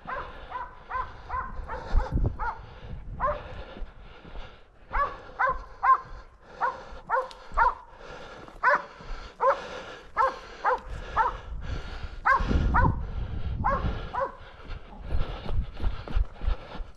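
Hunting dogs barking at a wild boar in quick repeated barks, about two or three a second with short lulls. Two bursts of low rumble come through, one about two seconds in and a longer one around twelve to fourteen seconds in.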